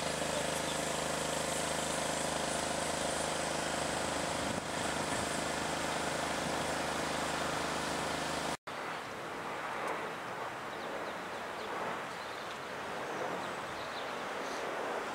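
A motor engine drones steadily at a constant pitch. It cuts off suddenly about two-thirds of the way in, leaving open-air background noise.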